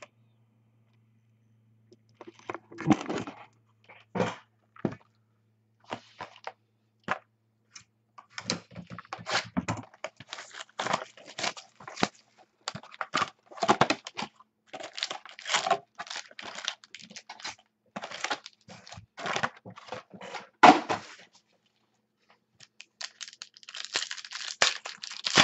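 Foil wrapper of a pack of football trading cards being torn open and crinkled by hand, in irregular bursts of crackling and tearing with short pauses.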